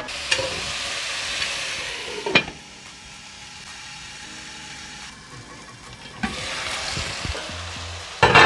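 Seasoned mutton pieces and onions sizzling as they fry in a pot, the fat rendering out. The sizzle is loud at first, turns quiet and muffled after a knock about two and a half seconds in as the lid goes on, and comes back loud about six seconds in, with a metal clatter near the end.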